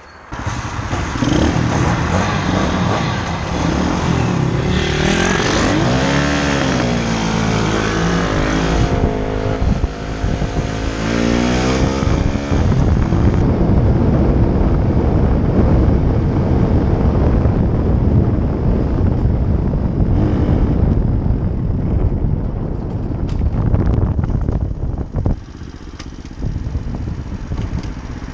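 A pit bike's single-cylinder engine revving as it pulls away, its pitch rising and falling through the gears for several seconds. After that, wind rushes over the helmet-mounted microphone and drowns the engine as the bike rides along, easing off near the end.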